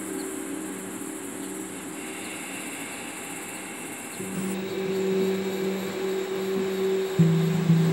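Steady high buzz of crickets and other insects, with low held musical notes beneath it that swell about halfway through; the insect hiss drops out at about the same point. Near the end, plucked guitar-like music comes in with repeated notes.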